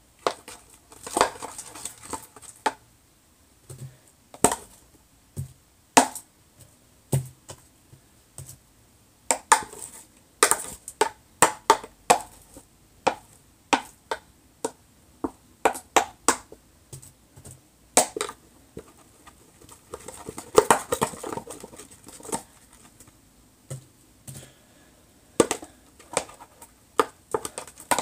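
Jelly cube slime, glue slime packed with cut magic eraser sponge cubes, being squished and kneaded by hand, giving off irregular sharp pops and crackles with brief squelching stretches.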